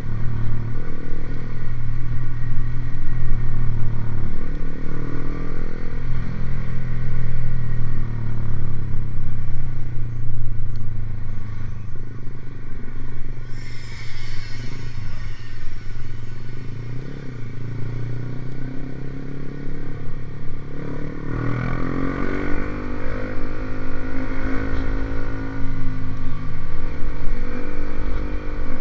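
Motorcycle fitted with an aftermarket racing exhaust running at a steady idle, with its exhaust note swelling and falling back as the throttle is blipped twice. A short hiss is heard about halfway through.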